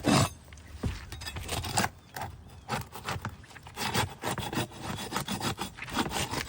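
Pry bar scraping and prying under asphalt roof shingles to break their sealant strips loose, in a run of irregular rasping strokes.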